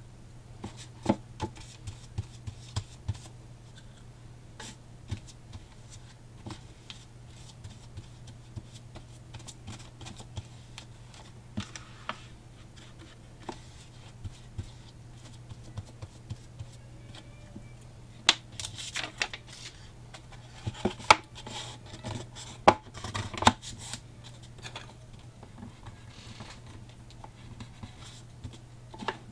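Hands handling white cardstock on a cardboard box, pressing and smoothing the glued card into place: scattered light taps, creases and paper rustles, busiest for a few seconds past the middle.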